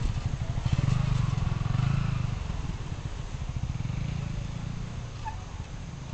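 Motorcycle engine running at low speed with a low pulsing note. It is loudest about one to two seconds in, then fades as the bike slows.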